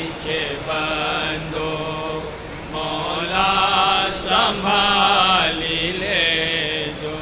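A voice chanting in long, wavering held notes, with a steady low tone underneath.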